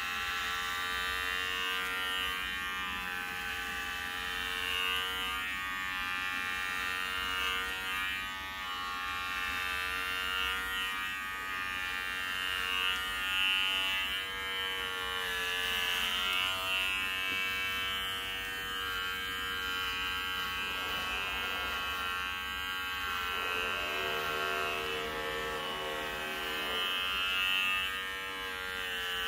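Electric hair clippers buzzing steadily while shaving a head, the hum wavering a little in pitch, with a shift in pitch for a few seconds past the middle.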